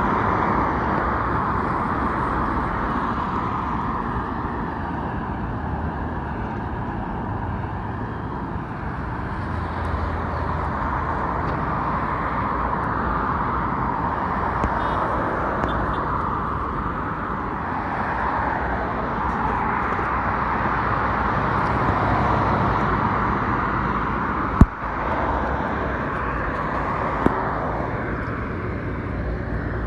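Steady hum of highway traffic, the tyre and engine noise swelling and fading as cars pass. A sharp click sounds near the end, with a smaller one a couple of seconds later.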